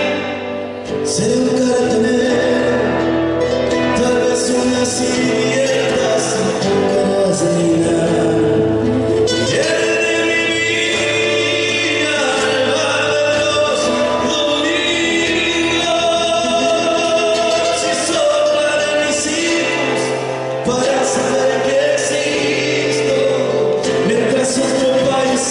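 Argentine folk song: singing over instrumental accompaniment.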